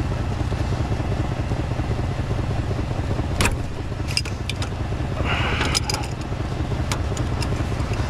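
A Ford F-250's 6.2-litre V8 idling steadily, with sharp metal clicks and a short scrape from about three and a half seconds in as an adjustable wrench works a tight hydraulic hose fitting on the plow.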